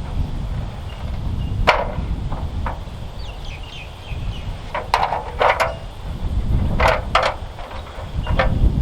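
Sharp wooden knocks of timber being struck or handled, about nine in small groups of two or three, over a steady low rumble.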